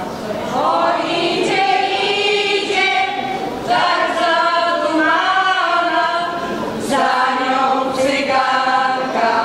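Women's folk choir singing a cappella, several voices together in sung phrases with short breaks for breath.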